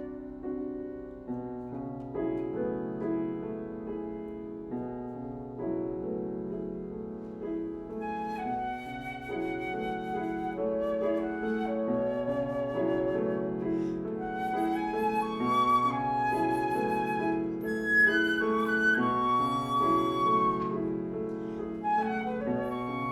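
Flute and piano duo playing a contemporary classical piece. The piano plays repeated chords throughout, and about a third of the way in the flute enters with a melody of long notes with vibrato that climb higher and grow louder towards the end.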